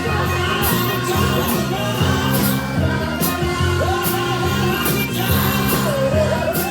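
Rock song with a steady drum beat, bass and guitar, and a sung voice coming in about 4 seconds in and again near the end.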